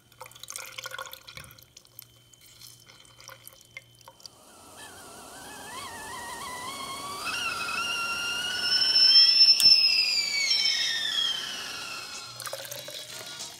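Small clicks and drips as lemon juice is squeezed through a hand-held citrus press, then a stovetop kettle begins to whistle, its pitch wavering and rising as it gets louder, loudest about two-thirds of the way through before it falls in pitch and fades.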